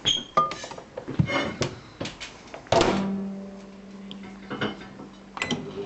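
Microwave oven being set going: short beeps and clicks from the keypad and door, a thunk a little under halfway, then the oven's steady low hum as it starts running.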